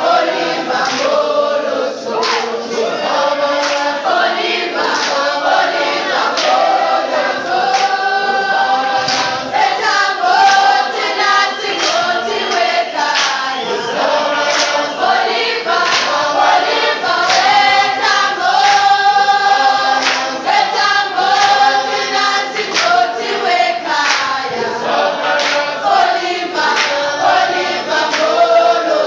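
A group of voices singing together in a choir-like chant, with a sharp steady beat keeping time.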